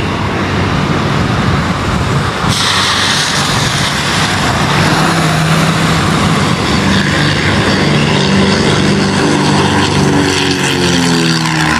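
Twin-engine propeller plane at takeoff power, its engines droning over a steady rushing noise. The drone grows more distinct about halfway through and rises slightly in pitch near the end as the plane comes toward the fence.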